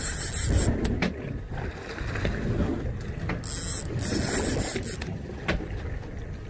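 Fishing reel giving a high-pitched ratcheting buzz in two bursts of about a second each, one at the start and one midway, while a fish is fought on the rod. Under it runs a steady low rumble of wind and boat noise.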